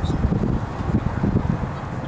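Wind buffeting the microphone, a low irregular rumble.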